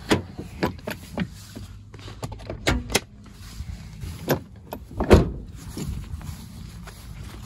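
Clicks and clunks of a 1999 Toyota Land Cruiser Colorado's door and bonnet latches being worked as the car is opened up to reach the engine. A run of sharp knocks, with the loudest thud about five seconds in, over a steady low rumble.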